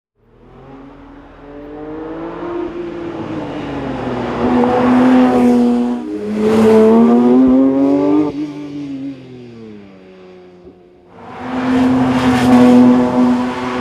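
Porsche 911 S/T's 4.0-litre naturally aspirated flat-six accelerating hard past the roadside, its pitch climbing, dipping at a gear shift about six seconds in and climbing again before it fades away. From about eleven seconds a second loud pass builds.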